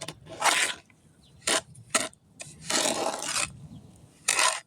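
Wet concrete resurfacing mix being stirred by hand, the mixing tool scraping through it in a few irregular strokes, one of them longer, about midway.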